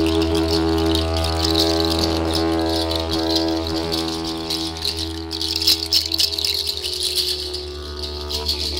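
Didgeridoo droning on a steady low note rich in overtones, with rattles shaken continuously over it and a few sharper clicks a little past halfway.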